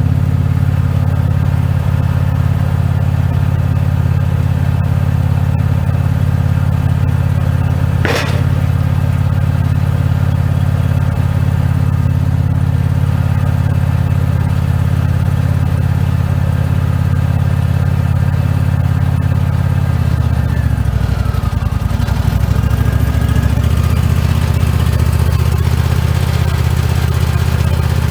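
Wood-Mizer LX150 portable sawmill's engine running steadily, with a single sharp click about eight seconds in. About twenty seconds in, the engine note drops and wavers briefly before settling back to a steady run.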